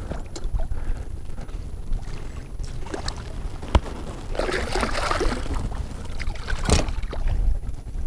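Water splashing and sloshing at a kayak's side as a hooked redfish thrashes by the landing net, over a low wind rumble on the microphone. Two sharp knocks, one about four seconds in and another near the end.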